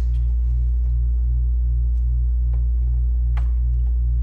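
Steady low electrical hum with a slow pulse of about two beats a second, and a few faint light clicks.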